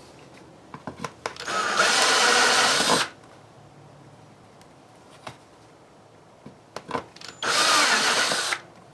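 Power drill with a step bit cutting through a plastic switch pod, run in two bursts of about a second and a half and a second, with small clicks before each.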